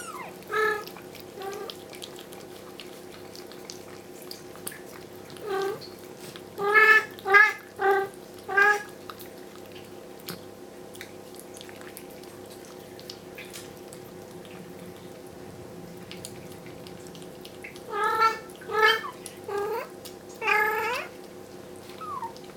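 Adult Bengal mother cat meowing loudly and insistently, in short calls: a few single ones early on, a run of four quick meows about seven to nine seconds in, and another four near the end, one of them rising in pitch. Her calling is her telling the owner to move her kittens back to the bedroom. A steady low hum runs underneath.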